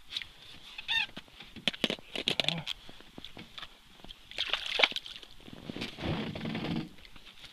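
Clicks and rustling of winter clothing and a short ice-fishing rod as a perch is struck and lifted out through the ice hole, with a short pitched call about a second in.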